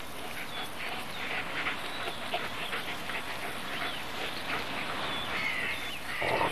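Wolf cubs whining and yelping in short, high squeaks. Near the end a louder, harsher outburst of snarling comes in.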